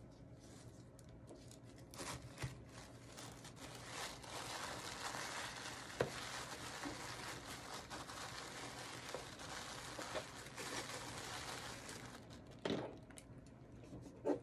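Tissue paper rustling and crinkling as hands press and fold it around soap bars in a gift box, with a couple of short knocks near the end.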